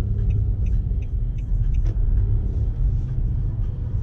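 Steady low rumble of a car driving, road and engine noise heard from inside the cabin, with faint light ticks over it.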